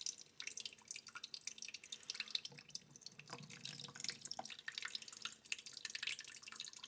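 Thin stream of water from a kitchen faucet pattering and dripping onto a Vaseline-coated paper towel and into a stainless steel sink, faint and irregular, the water running off rather than soaking in.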